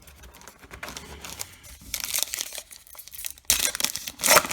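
Foil baseball card pack wrapper crinkling and tearing as it is opened, in irregular crackly bursts that are loudest near the end.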